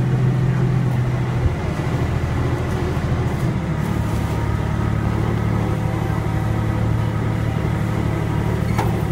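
Steady low drone of the ride train's engine running as it rolls along, its pitch shifting down slightly about a second and a half in and again a couple of seconds later.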